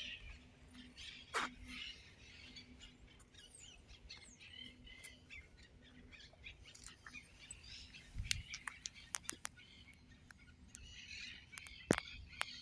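Small birds chirping and calling in a row of short notes, with a few sharp clicks and a brief low thump. The loudest click comes near the end. A faint steady hum sits underneath.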